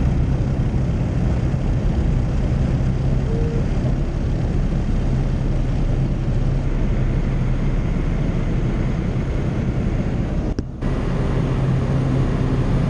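Light high-wing aircraft's engine and propeller droning steadily during takeoff and climb, heard from inside the cabin. There is a split-second dropout near the end.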